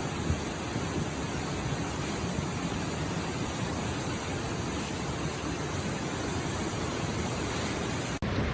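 Rushing floodwater: a steady, dense rush of water noise with no separate events. It breaks off for an instant near the end at a cut, then carries on.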